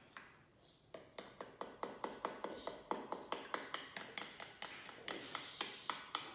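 Quick, regular light tapping, about five taps a second, starting about a second in.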